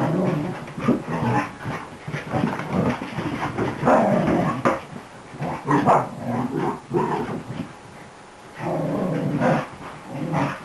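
Beagle-mix puppy growling and barking in excited, rowdy play, in a rapid run of irregular bursts with a short lull about three-quarters of the way through.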